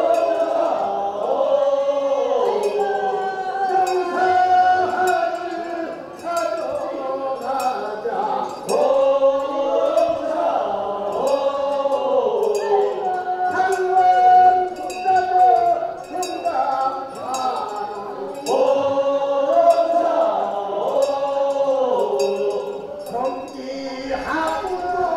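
Korean funeral bier song (sangyeo sori) chanted by a group of voices in long, sliding phrases, with a small metal bell clinking along.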